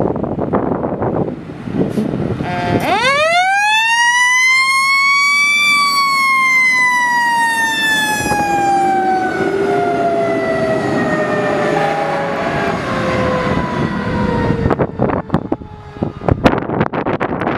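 Fire engine siren winding up, rising in pitch for about three seconds, then slowly winding down over about nine seconds before it stops. Wind noise on the microphone comes before and after it.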